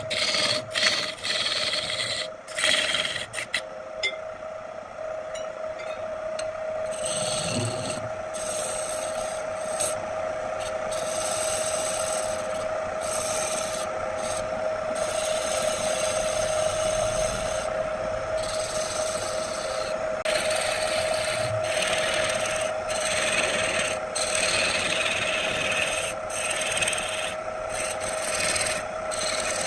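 Wood lathe running with a steady hum while a hand-held gouge cuts a spinning wooden vase blank, a rasping hiss that swells and breaks off with each cutting stroke. There are several sharp clicks in the first few seconds.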